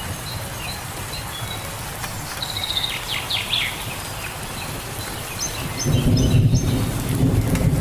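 Steady rain hiss with birds chirping: a quick run of short falling chirps a few seconds in, then higher chirps later. A low rumble swells up near the end.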